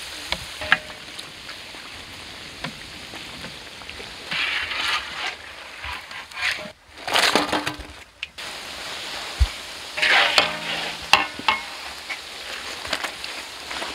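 Puris deep-frying in hot oil in a large aluminium kadai, a steady sizzle throughout. Louder bursts of sizzling come several times, along with metal scraping and clinks as a perforated steel skimmer stirs the puris and lifts them against the pan.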